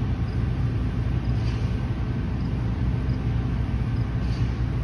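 Steady low rumble of a motor running, even in level throughout.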